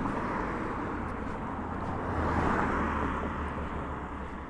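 A car passing on the road, its engine and tyre noise swelling to a peak a little past halfway and then fading.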